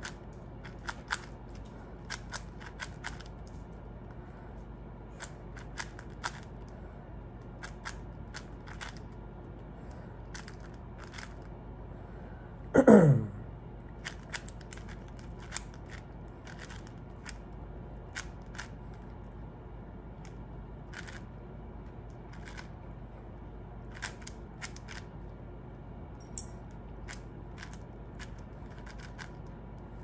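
Plastic 4x4 speed cube being turned by hand: scattered sharp clicks and snaps of its layers turning. About halfway through, a loud sound slides steeply down in pitch over about half a second.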